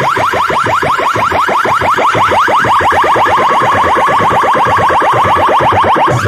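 Stacked DJ loudspeakers blasting an electronic competition sound effect at high volume: a rapid, even string of short rising chirps over a pulsing bass. It drops out for an instant near the end.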